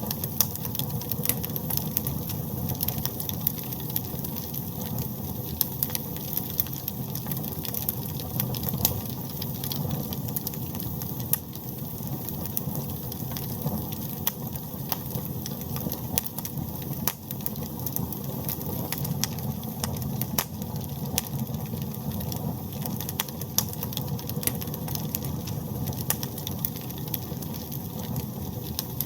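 Wood fire burning in a fireplace: a steady low rumble of the flames with frequent irregular crackles and pops.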